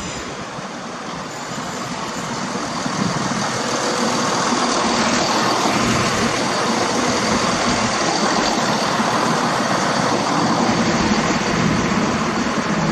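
Class 170 Turbostar diesel multiple unit running past close by, its underfloor diesel engines humming steadily over wheel and rail noise. It grows louder about three seconds in as the cars draw level, and stays loud as they go by.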